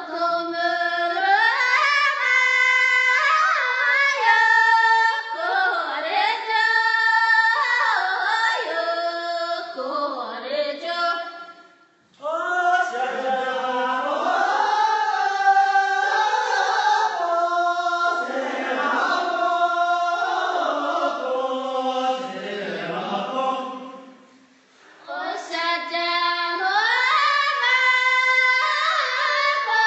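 Voices singing a melodic song in long held phrases, with two brief breaks about 12 and 25 seconds in.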